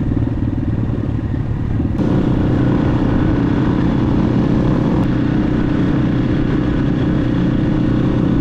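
Dirt bike engine running steadily while being ridden, heard from the rider's own bike. About two seconds in, the sound jumps abruptly to a louder, fuller engine note.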